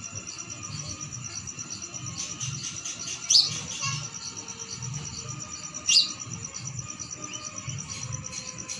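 Birds calling at dawn: two loud, sharp, sweeping calls, one about three seconds in and one about six seconds in, over a steady high, rapid pulsing trill.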